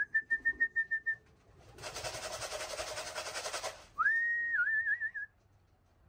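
A person whistling to call racing pigeons down off the roof and into the loft. First comes a quick run of short whistles at one pitch. About two seconds of rapid rattling follow, then one longer whistle that rises and then warbles.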